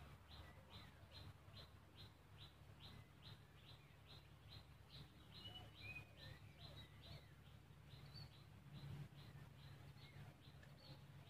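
Faint birdsong: a bird repeating a short high chirp that drops in pitch, about three times a second, with a few other whistled bird notes in between, over a low steady background hum.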